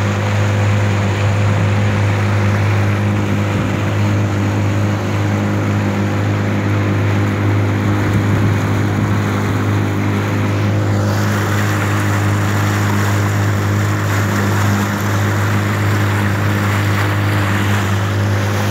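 Small motorboat's engine running at a steady cruising speed: a constant low hum, with wind and water rushing past the moving hull. The rushing noise grows louder about eleven seconds in.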